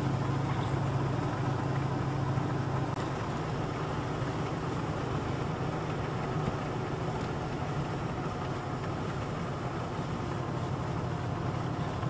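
Old Dodge pickup truck cruising on wet pavement, heard from inside the cab: a steady engine drone under an even hiss of tyre and road noise.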